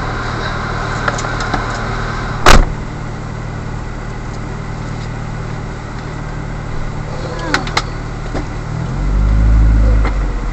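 Vehicle engine idling with a steady low hum. A single sharp knock comes about two and a half seconds in, a few small clicks follow later, and a deep rumble swells about a second before the end.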